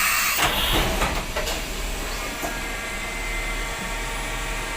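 Vertical machining centre running a drilling cycle: a loud hiss with a few sharp clicks for about the first second and a half, then a steady machine noise with several thin, even whining tones.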